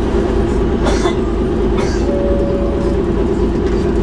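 Cummins diesel engine of a Volvo Olympian double-decker bus running steadily, a loud low drone heard from the lower saloon as the bus travels.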